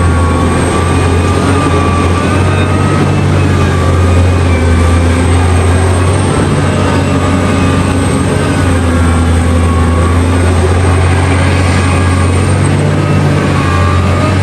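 Heavy diesel engines of a mining excavator and haul trucks running steadily under work, a loud, deep drone with faint higher whining tones over it.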